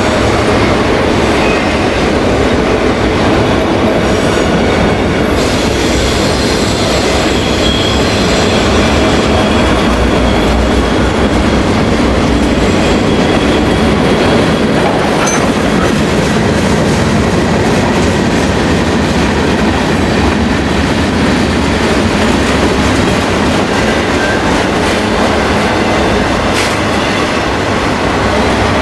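Freight train rolling past at close range: a loud, steady run of wheels on rails as the cars go by, with no let-up.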